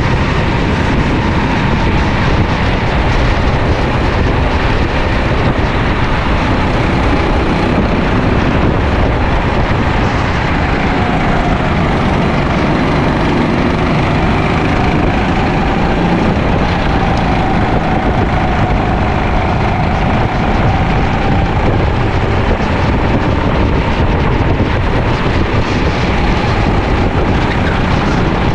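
Sodi LR5 rental kart engine running hard, heard onboard, its pitch rising and falling slowly through the corners under a heavy rush of wind and road noise.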